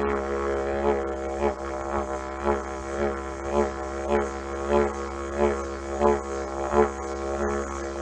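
Yidaki (didgeridoo) playing a continuous low drone, pulsed in a rhythmic pattern of accents about twice a second, each accent brightening the tone.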